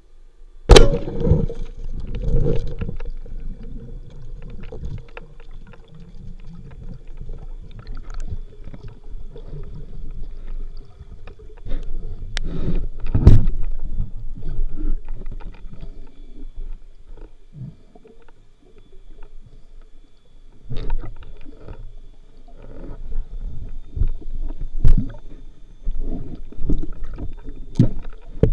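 Speargun fired underwater: one sharp, loud crack about a second in. Then muffled underwater rumbling and water movement, with a few more sharp knocks and clicks later on.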